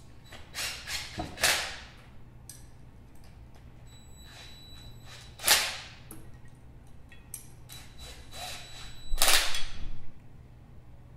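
Cordless DeWalt impact driver running down the housing bolts of a cycloidal gearbox in short bursts, a first tightening pass. There are three main bursts, about a second in, halfway and near the end, the last the loudest and longest at nearly a second.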